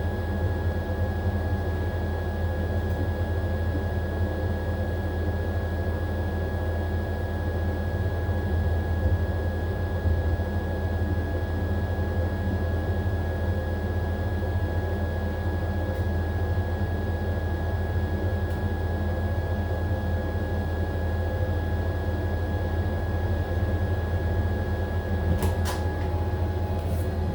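AQUA AQW-DX12M drum-type washing machine running with a steady low hum and a few fixed whining tones, typical of its drum spinning through the final spin. A few sharp clicks come near the end.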